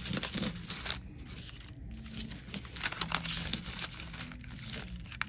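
Crinkling of Color Street nail-strip packets being handled and shuffled: quick, irregular crackles throughout.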